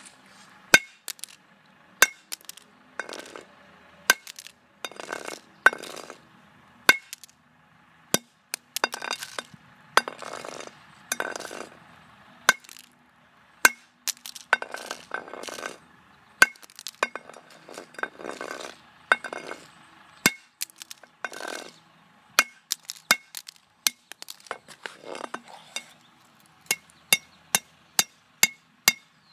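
A flip phone being smashed: dozens of sharp blows at irregular intervals, some followed by a brief crunch or rattle of breaking plastic pieces.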